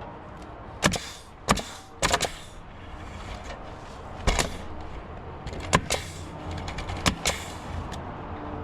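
A run of sharp knocks and bangs, about eight of them at uneven intervals, from work on a roof, over a steady low background hum.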